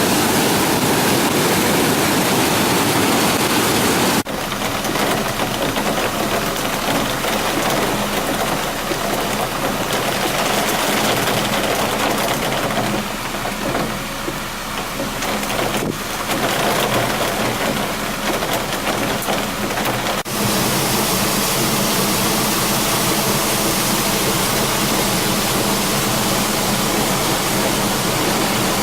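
Loud steady rush of floodwater from a rain-swollen river, with sudden changes in level about 4, 16 and 20 seconds in where one shot cuts to the next.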